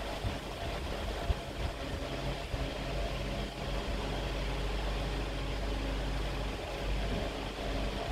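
Steady mechanical hum of a machine running, with a low drone and a few steady tones, and a faint knock about a second in.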